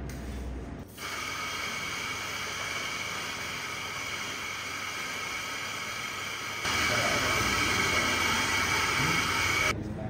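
Electric espresso grinder running, grinding coffee beans into a dosing cup: a steady motor whine with grinding noise that starts about a second in, gets louder about two-thirds of the way through, and stops abruptly near the end.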